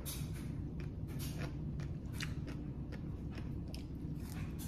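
A person chewing crunchy raw vegetables close to the microphone, an irregular run of crisp crunches: green papaya salad and raw radish.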